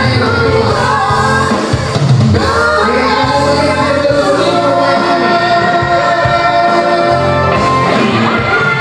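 A woman's high, piercing singing voice through a microphone and PA, holding long notes, over electronic keyboard accompaniment with a steady bass.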